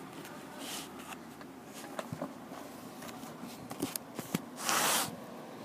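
Small handling noises from a plastic coin capsule and a velvet presentation box: a few light clicks, then a louder rustling scrape lasting about half a second near the end.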